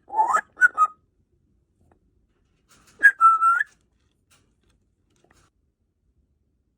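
African grey parrot whistling: a rising whistle followed by two short notes in the first second, then a second, held whistle about three seconds in that turns up at its end.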